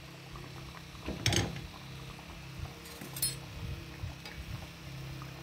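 A metal ladle knocks and clinks twice against a steel pot of ghee being used for deep-frying, over a faint, steady hiss.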